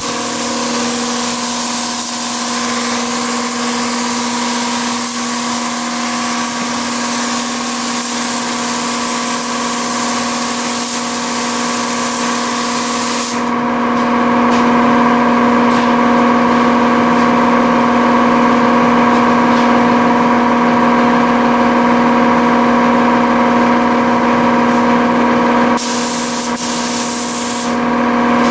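Air-fed gravity-cup paint spray gun hissing steadily as it sprays a car body, over a constant machine hum. About halfway through the highest part of the hiss drops away, and it briefly returns near the end.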